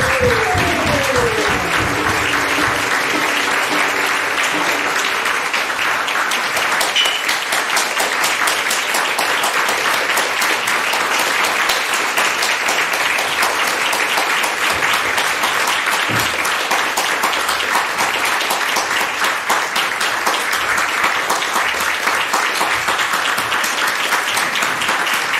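Theatre audience applauding, an even clapping that lasts throughout. The last notes of the music die away under it in the first few seconds.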